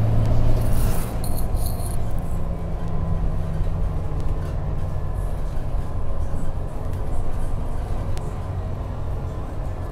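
Scania K310UB bus's five-cylinder diesel engine and drivetrain running, a low drone heard from inside the passenger saloon, loudest in the first second and then easing off. A few short high chirps sound about a second in.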